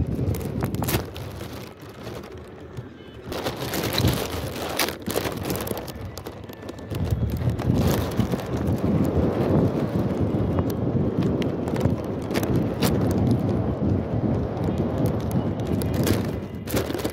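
Wind buffeting the microphone of a phone tied to a flying kite: a rough, gusting rumble, with irregular rattling clicks as the kite flaps.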